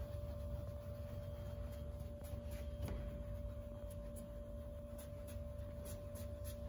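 Applicator pad rubbed in circles over car paint to work in cleaner wax, a faint soft scrubbing under a steady hum.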